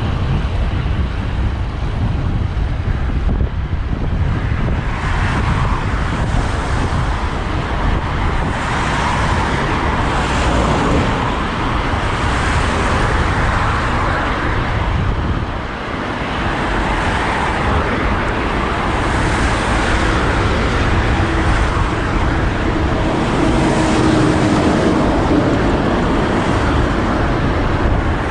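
Cars passing one after another on a main road, heard from a moving bicycle, each swelling and fading over a steady low rumble of wind and road noise.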